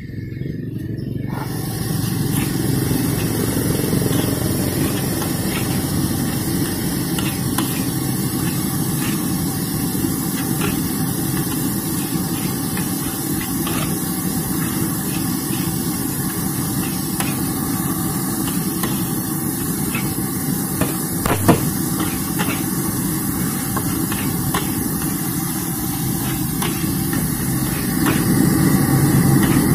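Fried rice being stir-fried in a large wok: a steady loud sizzle with a low roar under it, the metal spatula scraping and knocking on the wok, with one sharper clank about two-thirds through.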